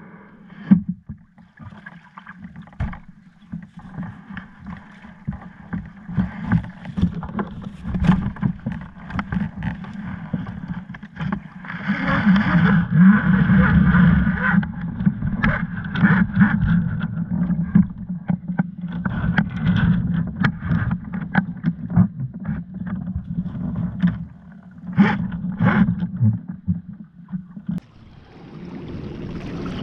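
Hobie Adventure Island sail kayak underway: water sloshing against the hull, with many irregular knocks and rattles. Loudest from about twelve to fifteen seconds in.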